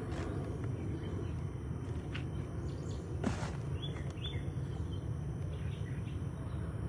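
Hands digging and shifting loose soil in a garden bin while hunting for potatoes: a steady low rustle with a few scrapes and knocks, the sharpest about three seconds in. A few short bird chirps come just after it.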